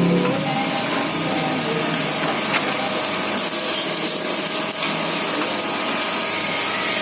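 Automatic sachet packing machine for liquid sugar running with a steady mechanical noise, with a sharp click twice.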